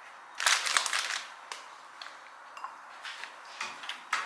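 Plastic snack packaging crinkling for about a second, then a few light clicks and knocks as a kitchen wall cabinet is opened and dishes inside are handled.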